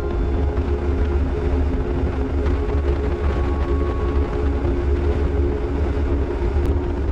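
Motorcycle engine running at a steady cruising speed, holding a constant note over a heavy low rumble.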